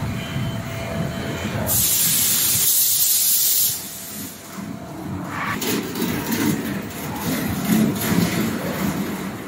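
Low steady machinery rumble, broken about two seconds in by a loud, high hiss of escaping gas that lasts about two seconds and cuts off suddenly.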